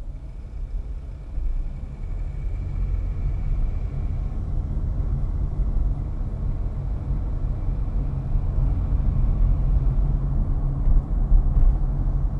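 Car on the move: steady low engine and road rumble as heard from inside a vehicle, growing louder over the first two seconds and then holding.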